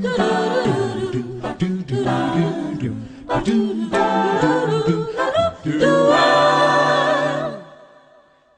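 Several voices singing a cappella in harmony, with one long held chord near the end that fades out.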